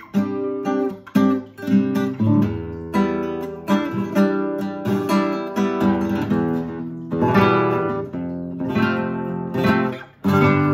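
Yamaha G-50A nylon-string classical guitar playing a run of strummed chords that ring out one after another, with a brief break near the end.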